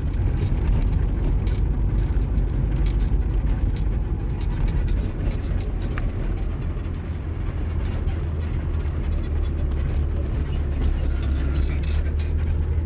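Car driving, heard from inside the cabin: a steady low rumble of engine and road noise with tyre hiss.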